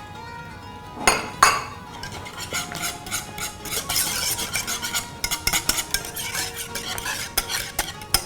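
A utensil stirring thick cooked cream in a pot, with quick, irregular scraping and clinking against the pot as rose syrup is mixed in for colour.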